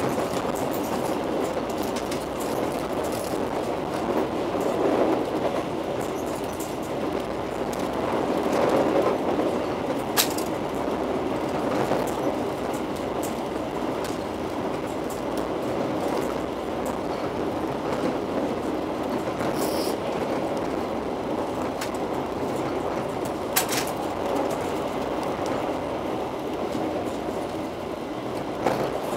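Steady rumble and rattle inside a moving Argo Parahyangan passenger coach, its wheels running over the rails at speed. Two sharp clicks cut through, one about ten seconds in and another near the end.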